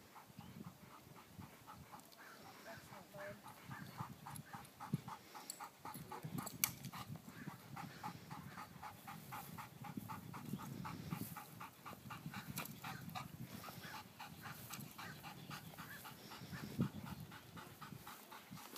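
A dog panting fast and evenly, with a few sharp clicks along the way.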